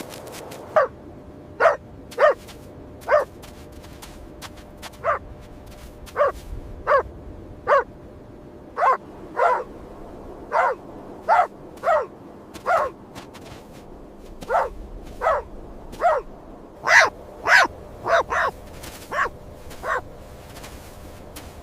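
An animal giving short, high yelping calls, each one sliding down in pitch, repeated irregularly about once or twice a second, with bunches of quicker calls in the second half.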